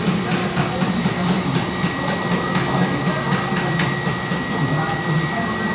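Steady mechanical hum with a thin held high tone, like a fan or air conditioner running, overlaid by faint light clicks about four a second.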